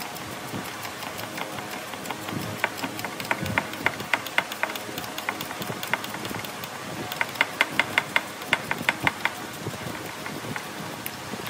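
Sharp clicks in quick, even runs of about five a second, one run a few seconds in and another near the end, from hand-tool work on the engine during a starter replacement.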